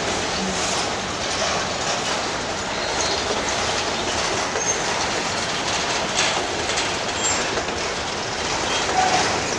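Freight train's boxcars rolling past: a steady rumble and rattle of steel wheels on the rails, with a few brief high wheel squeaks and a sharp knock about six seconds in.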